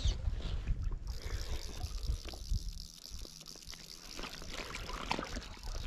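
Water trickling and lapping close by, over a steady low rumble.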